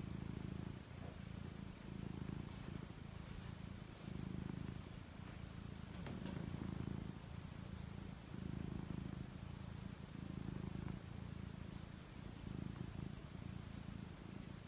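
Black-and-white domestic cat purring steadily as it dozes off, the purr swelling and easing about every two seconds with its breathing.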